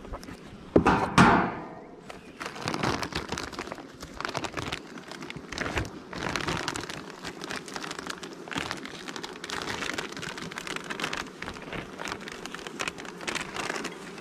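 Two sharp knocks about a second in, then a clear plastic hive sheet crinkling and crackling as it is peeled back off the top bars of a beehive's frames.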